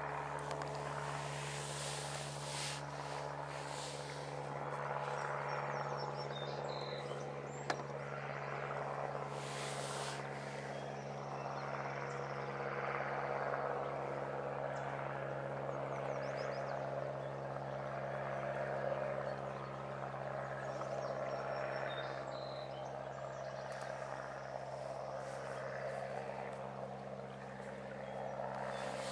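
Frog chorus rising and falling in waves over a steady low hum.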